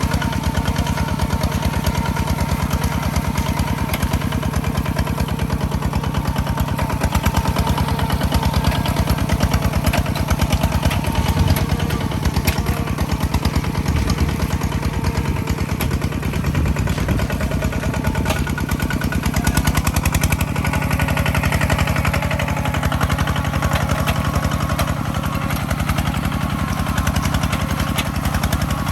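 Engine of a rice-harvesting farm machine running steadily, with a fast, even firing beat; its tone changes slightly about twenty seconds in.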